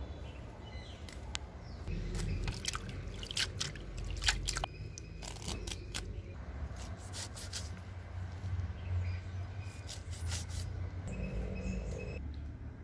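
Curry leaves being rinsed by hand in a clay pot of water: irregular drips, splashes and sharp little clicks, with the leaves rustling and rubbing.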